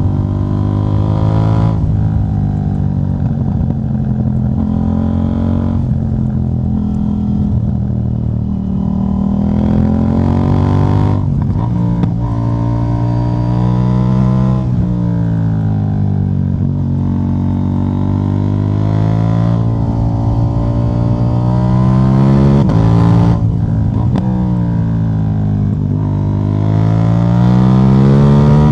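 KTM 790 Duke's parallel-twin engine running through a de-catted exhaust, its pitch rising and falling repeatedly as the throttle is opened and eased, with a few sudden breaks in pitch.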